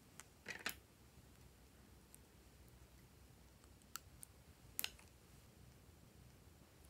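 Small clicks from plastic Lip Smacker lip balm tubes being handled, then a few sharp snips of scissors cutting pieces off the lip balm sticks, with a quick double snip near the end.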